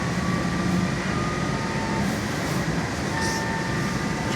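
Cabin noise of a LAZ E-183D1 trolleybus on the move: a steady rumble with thin whining tones from its electric drive.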